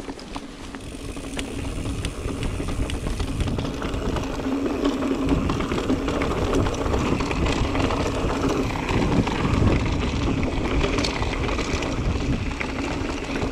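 Mountain bike being ridden over a trail: continuous tyre rumble with rattling clicks from the bike, getting louder over the first few seconds.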